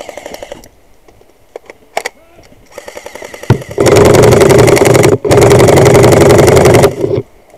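Airsoft electric rifle firing full-auto right at the microphone: two long bursts of fast, buzzing mechanical fire, back to back with a brief break, starting about halfway through. A short rattle comes at the start.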